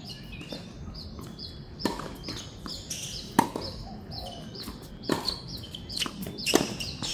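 Tennis ball impacts in a rally on a hard court, four sharp pops about one and a half seconds apart, the loudest near the middle and near the end. Under them a bird gives a quick chirping call, repeated over and over.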